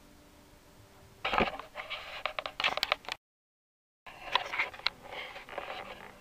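Sandpaper rubbed by hand on a wooden slingshot fork: irregular scraping strokes, cut off by a brief dead silence about three seconds in, then starting again.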